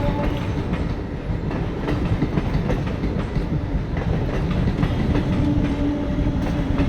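Passenger train running along the track: a steady low rumble with the clicking of wheels over rail joints. A faint steady tone comes in briefly about two seconds in and again near the end.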